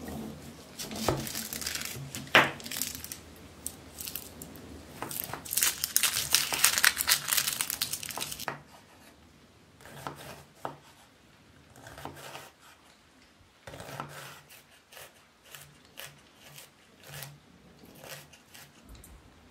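Dry red onion skin being peeled and torn off with a small knife, crackling and crinkling. About eight seconds in this gives way to a knife dicing the onion on a wooden cutting board in light, irregular taps.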